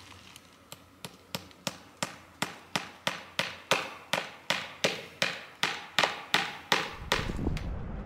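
A hammer striking a fastener into a tree trunk, about twenty even blows at roughly three a second, getting louder as they go. A low rumble comes in near the end.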